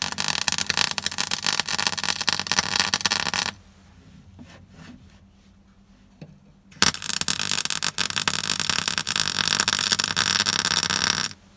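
MIG welder plug-welding holes in a Classic Mini's steel cross member: a steady arc crackle for about three and a half seconds, a pause of about three seconds, then a second weld of about four and a half seconds that stops just before the end.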